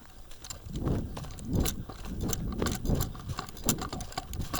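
Running footsteps, heavy thuds landing about twice a second, with clicks and rattles between them.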